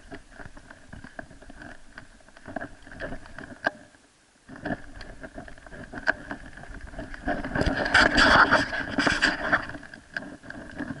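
Rubbing and knocking on a camera worn by a springer spaniel puppy as she moves about: fur brushing the microphone, with scuffs and small clicks. There is a brief lull about four seconds in, and the rubbing is loudest and densest about eight seconds in.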